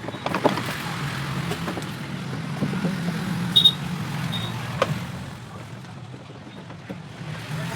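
Motor vehicle engine running with road noise, scattered clicks and knocks, and a brief high tone about three and a half seconds in.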